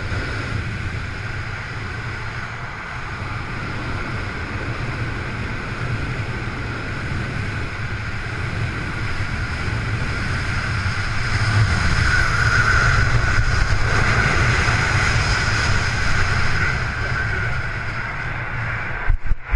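Steady wind rushing over the camera microphone of a parachutist descending under canopy. It grows louder about two-thirds through and breaks into choppy gusts in the last second as the jumper nears the ground.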